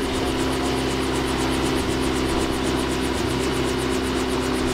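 Rotorway Exec 162F kit helicopter running on the ground with its main rotor turning: a steady engine hum with a fast, even beat from the rotor.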